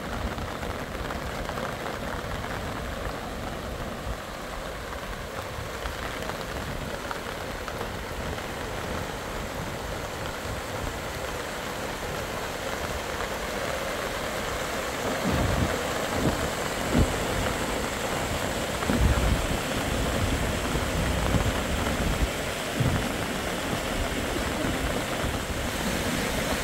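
Steady heavy rain, with irregular low thumps and rumbles in the second half.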